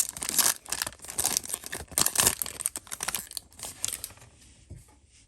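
Foil wrapper of a Yu-Gi-Oh booster pack being torn open and crinkled, a dense run of crackles that thins out about four seconds in.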